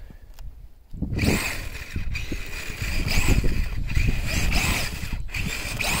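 Electric motor of a radio-controlled truck whining up and down in short revs, starting about a second in, over a steady high whine and a low rumble. Its owner suspects the cold has drained the battery.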